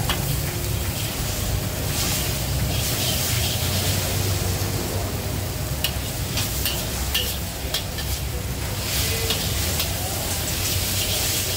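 Char koay teow frying in a wok: the noodles and egg sizzle while a metal wok spatula stirs and scrapes them, with sharp clinks of the spatula against the wok, most of them from about six seconds in. A steady low rumble runs underneath.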